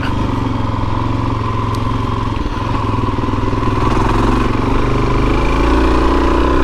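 Suzuki DR-Z400S single-cylinder four-stroke dual-sport engine running steadily, its pitch rising slightly past the middle.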